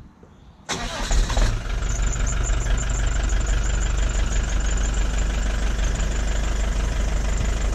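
1998 Fiat Ducato 2.5-litre diesel engine cold-starting, heard close to the tailpipe. It fires suddenly a little under a second in, runs louder for about a second, then settles into a steady idle.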